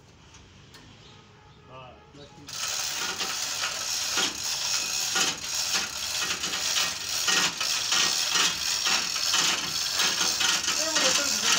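Chain hoist rattling and ratcheting as an engine is lowered on it: a dense run of rapid metallic clicks that starts suddenly about two and a half seconds in, after a quiet start.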